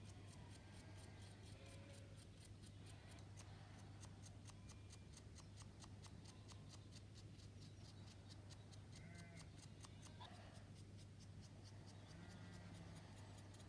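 Near silence: a steady low electrical hum with faint regular ticking about four times a second, under the faint scratching of a stiff paintbrush dry-brushing a plastic model part.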